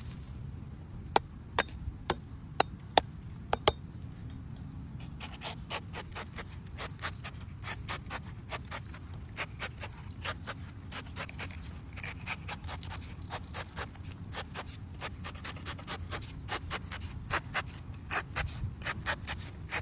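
A knife cutting a coconut: about seven sharp strikes into the shell in the first few seconds, then from about five seconds a steady run of lighter scraping and shaving strokes, two or three a second.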